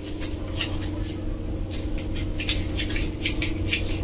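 Paper banknotes rustling as they are leafed through by hand: a string of short, crisp rustles, a few a second, over a steady low hum.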